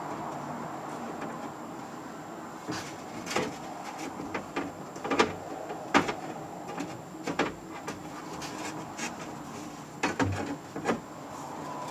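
Scattered knocks, clicks and rattles from the window glass and door hardware being worked into the rails inside a car door. The sharpest knocks come in the middle.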